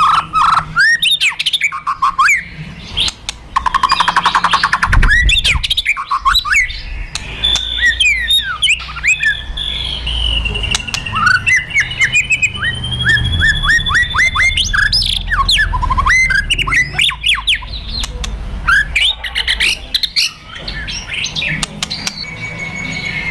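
White-rumped shama (murai batu) singing aggressively, the 'kretekan' and 'tembakan' of a fighting-mood bird: rapid dry clicks and rattles mixed with sharp falling whistles. A buzzy rattle comes about four seconds in, and a long held whistle runs through the middle. A low rumble sits beneath.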